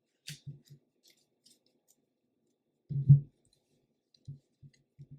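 Short wordless vocal sounds, a brief one near the start and a louder one about three seconds in, with faint scattered clicks in between.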